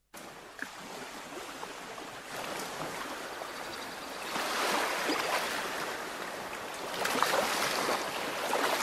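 Sea waves washing onto the shore, a steady rush that swells and eases in slow surges every two to three seconds.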